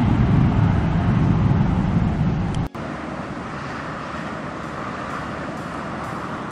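Jet airliner's engines at takeoff thrust, a loud low rumble. About two and a half seconds in it cuts off abruptly, leaving a quieter, steadier hissing jet noise.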